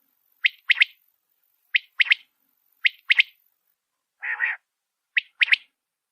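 Quail calling: a repeated three-note phrase, one short note then a quick pair, about once every second and a bit, four times. A lower, rougher call lasting about a third of a second comes about four seconds in.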